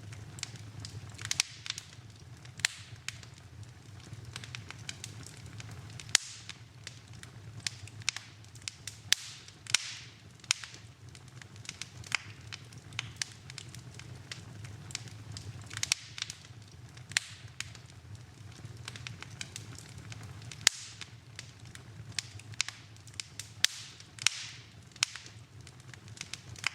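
Wood fire burning in a fireplace, crackling with irregular sharp pops, some much louder than the rest, over a steady low rumble.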